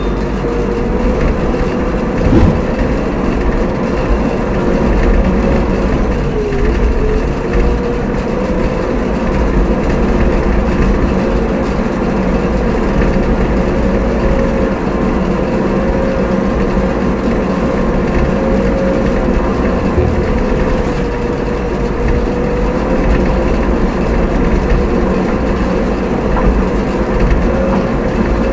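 Diesel engine of a heavy vehicle running steadily at an even speed while driving, heard close up from on board. Its pitch dips briefly once about six seconds in, and there is a single knock a couple of seconds in.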